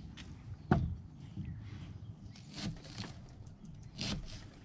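Knife cutting an onion on a plastic cutting board: one sharp knock under a second in, then a few fainter cuts against the board.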